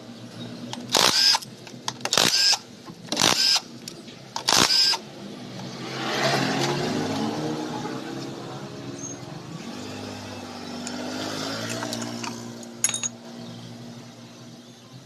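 A cordless power driver whirs in four short bursts, each spinning up in pitch, as the gearbox cover bolts are backed out. Then an engine hum swells and slowly fades in the background, with a single sharp click near the end.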